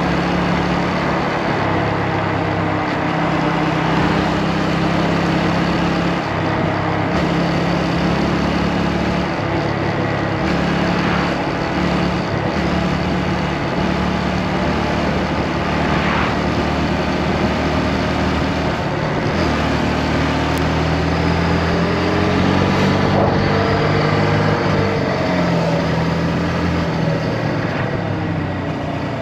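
Motorcycle engine running under way, its pitch shifting up and down several times with throttle and speed, under a steady rush of wind noise.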